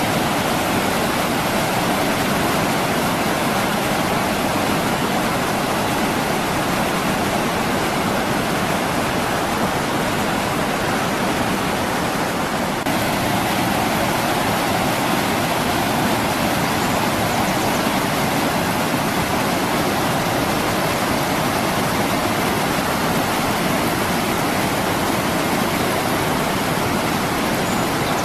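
Rushing water of wide, shallow river rapids breaking over rocks: a steady, dense roar, with a slight brief dip in level about halfway through.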